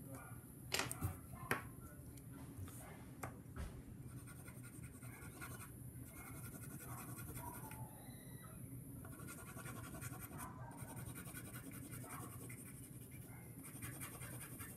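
Colored pencil scratching back and forth on paper, shading in stripes. A couple of sharp clicks come about a second in.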